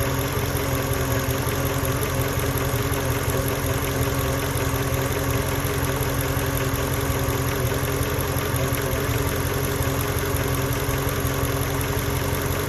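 Mercedes E55 AMG's 5.4-litre V8 idling roughly after a cold start, at a steady level with a low, uneven running note. The owner says it runs as if misfiring once the revs come down, though no fault codes are stored.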